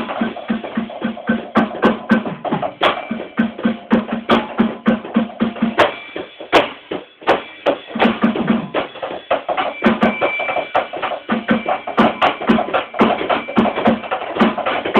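Electronic drum kit being played freely: a run of quick, steady drum hits with a repeating low thud. About halfway through it breaks off to a few scattered hits, then the beat picks back up.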